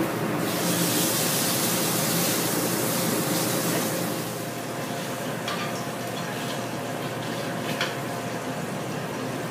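Seasoned sea bass fillet searing in a very hot pan of canola oil: a loud sizzle starts about half a second in and drops to a quieter, steady sizzle after about four seconds, with a few faint clinks later on.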